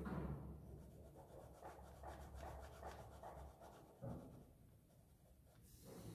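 Pen scratching on sketchbook paper in faint, short drawing strokes, with one slightly louder stroke about four seconds in.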